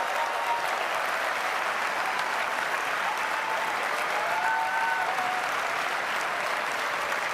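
Large audience applauding steadily, with a few faint voices calling out over the clapping.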